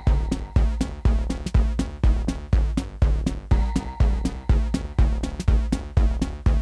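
Live techno from hardware drum machines and analogue synthesizers: a steady four-on-the-floor kick about twice a second over a heavy bass line, with hi-hat ticks between the beats and a repeating synth pattern.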